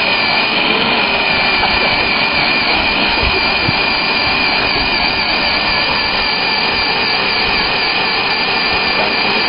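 Electric motor and gearbox of a scale RC crawler truck whining steadily at a high pitch as the truck pushes against a log.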